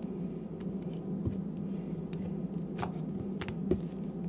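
Hands kneading and stretching glue-and-shaving-foam slime on a countertop: scattered small clicks and squelches over a steady low hum.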